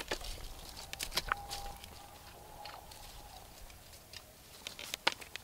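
Scattered light clicks and knocks as a spare chainsaw bar and chain are handled and fitted onto the saw, a few seconds apart.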